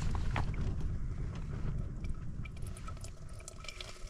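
River water squeezed by hand through a small squeeze filter, trickling and dripping into a plastic bottle, under a low rumble of wind on the microphone.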